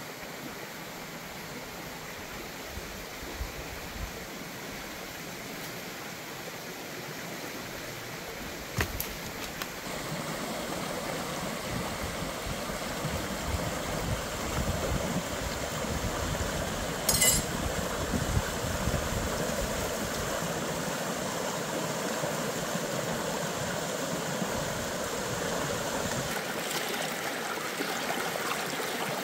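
A shallow stream running over rocks: a steady rush of water that grows louder about a third of the way in, with a couple of brief clicks.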